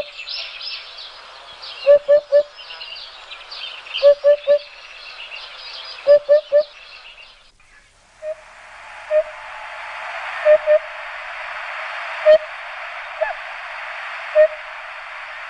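Birdsong ambience: many quick high chirps with a low three-note call repeating about every two seconds. About eight seconds in it changes abruptly to a steady hiss with single low calls every second or two.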